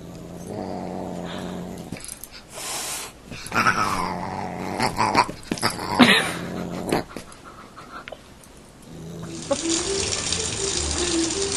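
Dog growling as it play-fights with a Siamese cat, with two short, sharp cries partway through. About nine seconds in this gives way to a steady hiss of water running from a kitchen tap.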